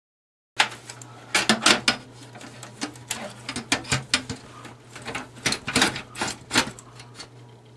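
Irregular clicking, knocking and scraping of plastic and metal parts being handled in a desktop computer case's drive bay, over a low steady hum, starting abruptly about half a second in.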